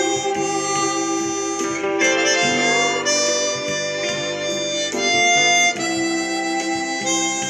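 Hohner chromatic harmonica playing a slow melody of long held notes, over a guitar accompaniment.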